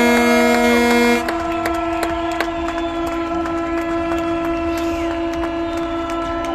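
Several ship horns sounding together in long held blasts; one deep horn cuts off about a second in while another carries on steadily, with scattered sharp clicks over them.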